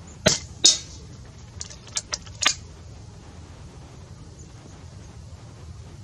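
FX Wildcat PCP air rifle firing a .177 13-grain slug: two sharp reports a third of a second apart near the start, then four lighter clicks about two seconds in.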